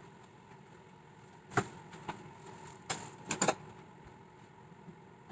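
Refrigerator contents being handled during a clean-out: a sharp knock about a second and a half in, then a quick cluster of clicks and clatters around three seconds in, as containers and items are set down and moved.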